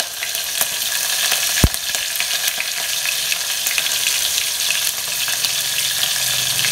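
Hot oil sizzling and crackling in a steel pot as chopped green chillies fry with cumin seeds in a tempering, with one sharp knock about a second and a half in.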